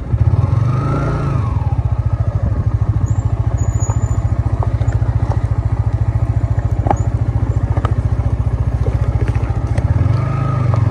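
Motorcycle engine running steadily with an even, rapid beat, its pitch briefly rising and falling about a second in and again near the end.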